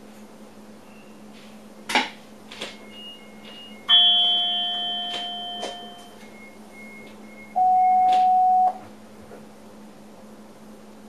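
Electronic signals in a train driver's cab: two clicks, a few short high beeps, then a single loud chime that rings and fades over about two seconds. More short beeps follow, then a steady tone lasting about a second, all over a constant electrical hum.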